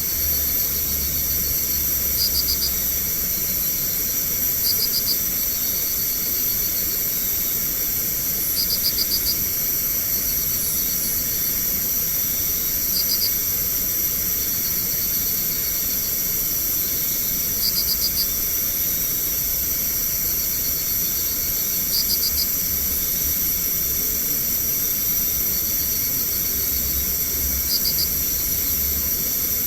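Night insect chorus of crickets, a steady high-pitched ringing with a short pulsed chirp trill repeating about every four to five seconds. A low rumble comes and goes underneath.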